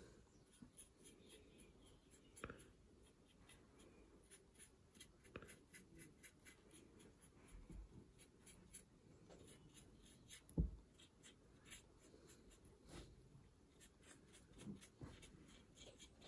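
Faint, irregular scratching of a paintbrush's bristles in short strokes, dry-brushing paint onto a model railway coach's side, with one soft knock about ten and a half seconds in.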